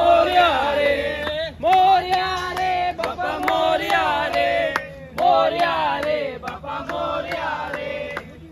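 A group of voices chanting in unison in repeated phrases of a second or two, over regular sharp beats.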